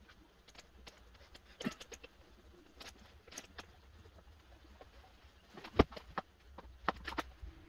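Scattered light clicks and knocks of parts being handled, with one sharper knock a little under six seconds in and a few more near the end, over a low rumble.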